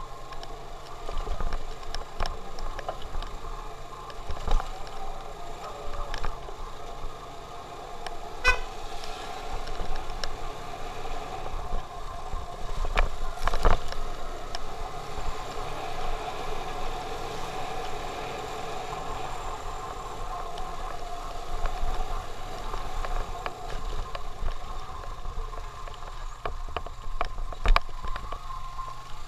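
Motorcycle engine running while riding, heard from on the bike, with wind rushing over the microphone. A few sharp knocks stand out, the clearest about eight and thirteen seconds in, as the bike jolts over the broken, potholed road.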